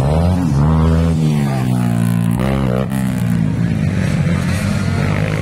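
Off-road motorcycle engines revving hard as enduro dirt bikes race past on the track, the pitch rising and falling several times with the throttle.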